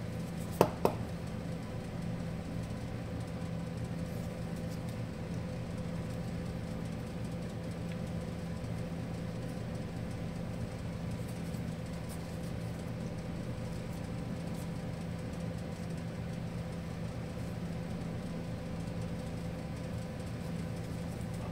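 A steady machine hum, with two sharp clicks of small hand tools being handled less than a second in.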